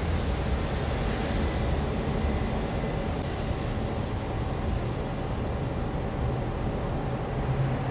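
A train running past, a steady rumble with a faint steady hum, and a low drone growing stronger near the end.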